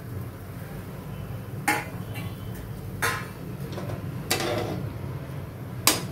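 A metal spoon clinking and scraping against a metal kadai while stirring vermicelli into boiling water: four sharp clinks, about a second or more apart, over a steady low hum.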